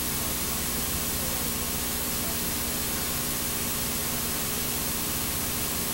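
Steady hiss with a faint low hum beneath it, unchanging throughout: the noise floor of an old video-tape field recording.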